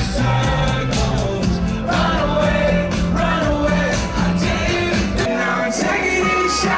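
A song with singing over a steady beat; the bass drops out about five seconds in.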